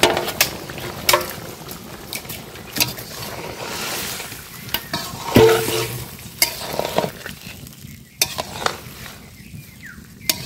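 A long metal spatula stirring a fish and drumstick curry in a large metal karahi, knocking and scraping against the pot many times, with one short ring from the pot a little past halfway. A faint hiss of the simmering curry lies underneath.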